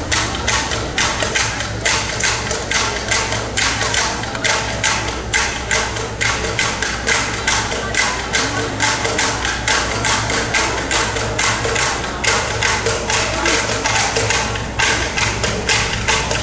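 Live percussion music: a fast, even beat of struck instruments, about four to five strikes a second, over a low steady hum.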